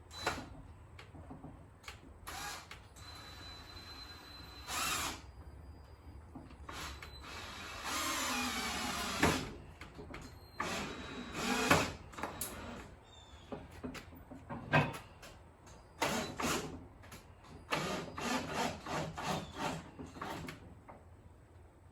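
Power drill driving a long, dish-soap-lubricated screw into wood, in several short runs with pauses and clicks between them.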